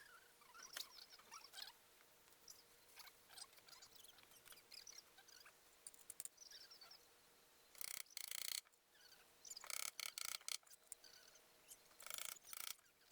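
Faint, scattered high chirping of small birds, with a few brief rustling bursts in the second half.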